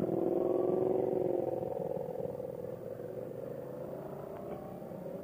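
Yamaha FZ-07 motorcycle's parallel-twin engine running under way, loudest in the first couple of seconds, then easing a little with its pitch slowly rising.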